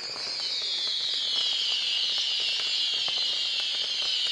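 Aerial fireworks: a sharp bang, then a loud, dense high-pitched hiss that slowly sinks in pitch, scattered with small pops and crackles.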